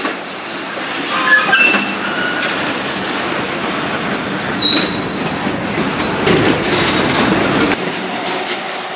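Railroad cars rolling past on the track, a steady rumble with the wheels giving off short high-pitched squeals against the rails, repeated on and off.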